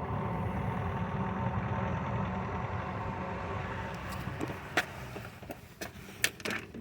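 Chinese 5 kW diesel heater running steadily, its burner and fan making a low rumble with a steady hum; the fuel pump is pulsed to turn it down to about 3 kW. A little after halfway the sound drops away and several sharp clicks and knocks follow.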